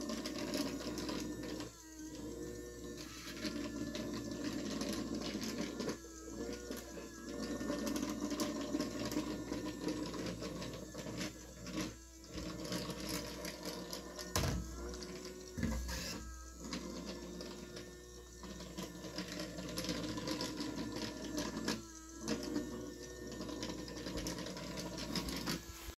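Daiso robot vacuum running: a steady mechanical whir of its small motors, with the sound dipping briefly every few seconds. Two low thumps come in the middle.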